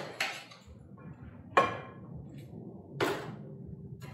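A metal utensil scraping and knocking against a metal sheet pan as roasted vegetables are pushed off it onto a plate: three sharp clatters, about a second and a half apart.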